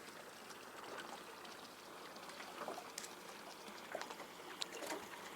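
Faint water lapping and trickling against a small boat's hull, with a few light knocks in the second half.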